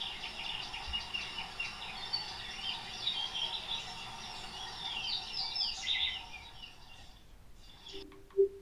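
Ambient birdsong, many small birds chirping and twittering, from the TV's Cinemagraph live-photo scene. It fades out about seven seconds in. Near the end comes a short, louder low blip.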